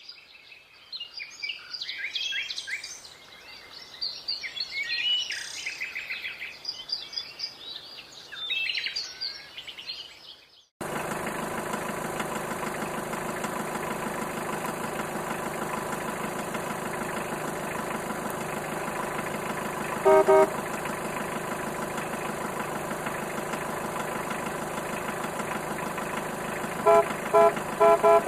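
Birds chirping for about the first ten seconds. Then a truck engine sound starts abruptly and runs steadily, with one short horn honk about midway and several quick honks near the end.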